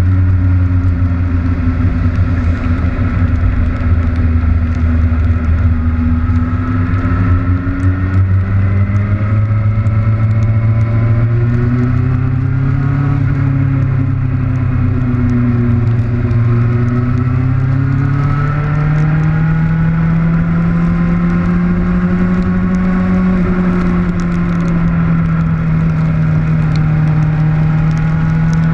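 Kawasaki Ninja motorcycle engine running under way, its note climbing slowly for about twenty seconds and then holding steady, with wind and rain noise on the camera.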